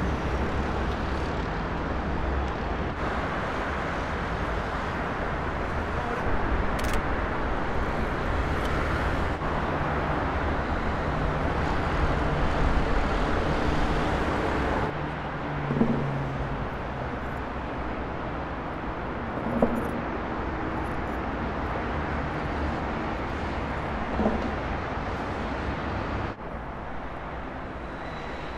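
Steady road traffic noise from a busy multi-lane road, dropping in level about halfway and again near the end, with a few brief louder sounds in between.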